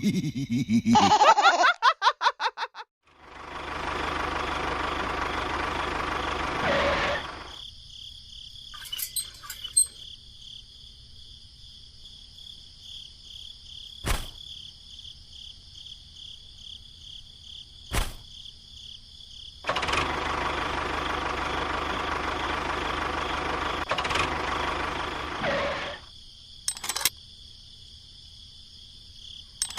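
Small electric motor of a DIY model tractor running steadily in two stretches of several seconds, with two sharp clicks in between. It opens with a loud pulsing sound of about three seconds, and a steady insect chirring runs underneath.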